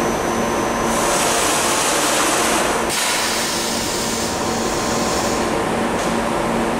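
Bodor T6A tube laser cutting machine running while it works square carbon-steel tube: a loud, steady machine hiss over a low hum. The higher part of the hiss cuts out and comes back a few times, sharply about three seconds in.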